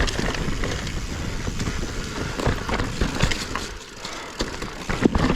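Specialized Stumpjumper Evo alloy mountain bike ridden over rocky singletrack: tyres crunching and knocking over rocks, with frequent sharp clicks and rattles from the bike and a low wind rumble throughout.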